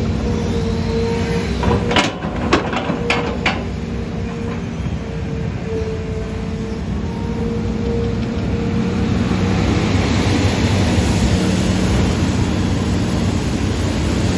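Hitachi Zaxis 135US excavator's engine running steadily, with a handful of sharp knocks about two to three and a half seconds in. From about ten seconds in it grows louder and harsher.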